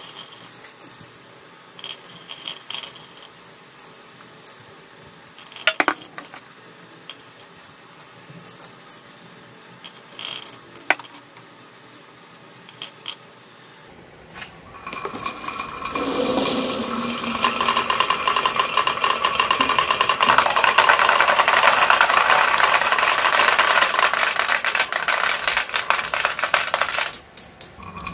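Glass marbles on a carved wooden wave-track marble run: a few sharp clicks as single marbles drop into the queue, then, about halfway through, a long dense clatter of many marbles rolling and knocking against the wood and each other once the line is released. The clatter cuts off shortly before the end.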